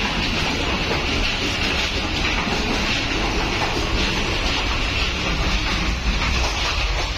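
Steady running noise of a moving passenger train heard from inside the coach: a constant low rumble with a steady hiss over it.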